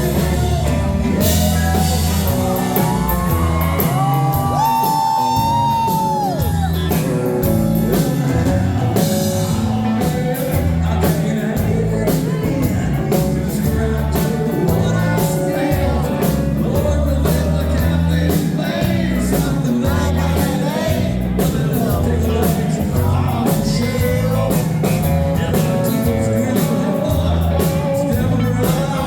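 Live country-rock band playing loud, with a singer over a steady drum and bass beat and electric guitar.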